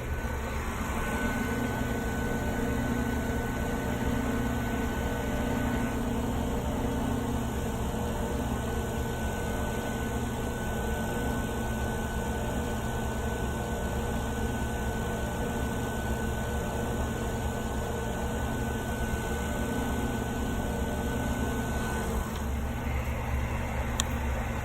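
Steady hum of a running vacuum pump on a system being leak-tested, with a faint thin high whine that starts about a second in and stops near the end.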